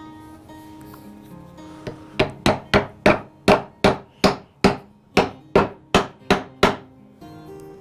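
A hammer striking about thirteen times in a quick, even run, a little under three blows a second, over background guitar music.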